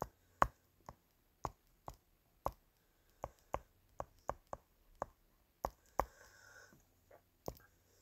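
Stylus tip tapping and clicking on a tablet's glass screen during handwriting: a string of sharp, irregular clicks, roughly two a second, with a short pause near the end.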